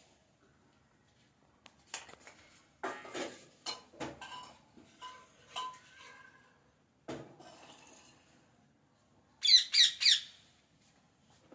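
A pet parrot chattering quietly with scattered clicks, then near the end giving a burst of four loud, harsh squawks in quick succession.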